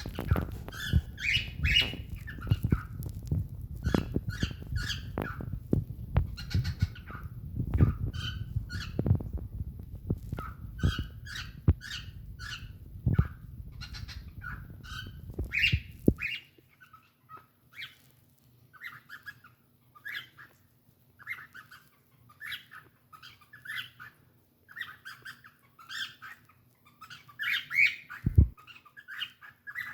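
Cockatiel chirping and chattering in a quick run of short, squawky calls, the contented noises of a happy bird. A low rumble lies under the calls and stops suddenly about halfway through; a single thump sounds near the end.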